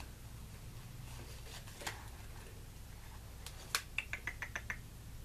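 Makeup brush being taken out of its retail packaging: a few faint clicks, then a quick run of about seven small ticks near the end, over a low steady hum.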